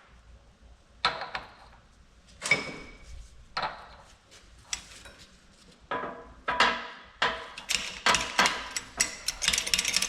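Hammer blows on the steel parts of a Unimog 416 CV joint during reassembly, each strike ringing briefly. They come about once a second at first, then closer together, and turn into a fast, dense run of taps near the end.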